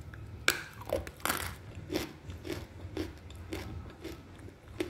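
A person bites into a dry chunk of edible clay and chews it. Two loud crunches come about half a second and just over a second in, then smaller chewing crunches follow about twice a second.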